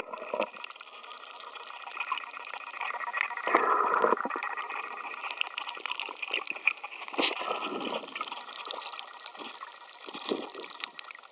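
Water gurgling and sloshing, heard underwater, with scattered small clicks. The sound swells briefly about three and a half seconds in and again about seven seconds in.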